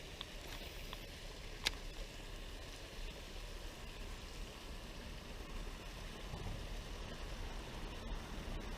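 Steady outdoor background noise, an even low rush, with one sharp click a little under two seconds in.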